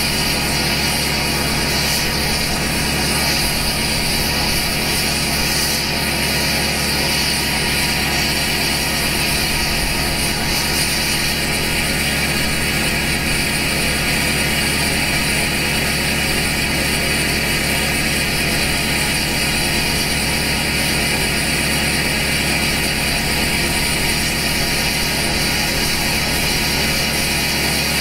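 2012 LML Duramax 6.6-litre V8 turbo-diesel idling steadily through a 5-inch straight-pipe exhaust with an 8-inch axle-dump tip, still warming up after a cold start in below-freezing weather.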